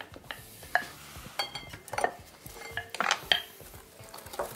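Wire whisk clinking and scraping against a glass mixing bowl, stirring melted butter, sugar and vanilla, in irregular taps, a few of them ringing briefly.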